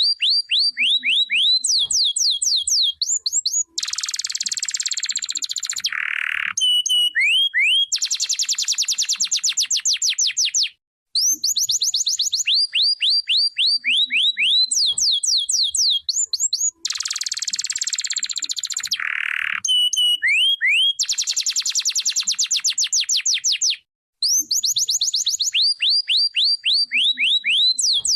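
Domestic canary singing: quick runs of sweeping chirps, buzzy trills and a lower buzzy note. The same song sequence repeats about every thirteen seconds, with a short break between repeats.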